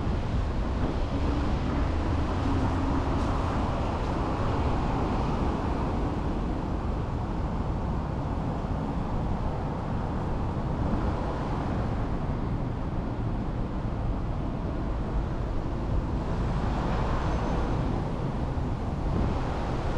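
Road traffic passing: a steady rumble that swells every few seconds as vehicles go by.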